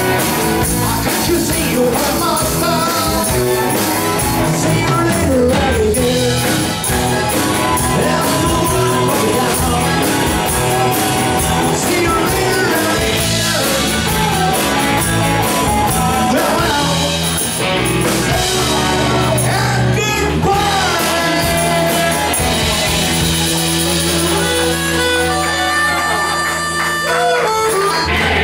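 A rock and roll band playing live, with electric guitars, bass and drums under singing.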